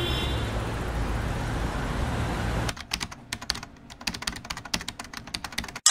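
Steady city street noise with a low traffic rumble, giving way a little under three seconds in to rapid clicking of typing on a computer keyboard.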